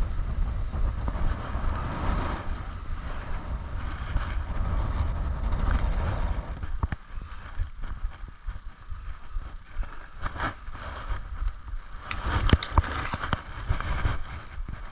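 Gusty wind buffeting the microphone. It eases off about halfway through and picks up again near the end, with a few sharp knocks.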